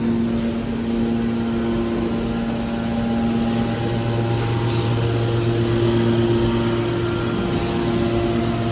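Hydraulic metal baler running: a steady machine hum from its motor and hydraulic pump, holding several even tones.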